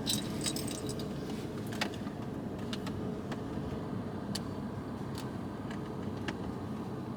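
Scattered small clinks and ticks of handled objects, several close together at first then single ones every second or so, over a steady low rumble.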